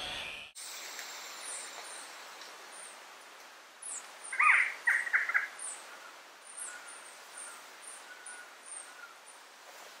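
Forest birds calling: thin, very high chirps repeat about twice a second throughout, and a louder burst of about four sharp calls comes a little past the middle, over a soft forest hiss.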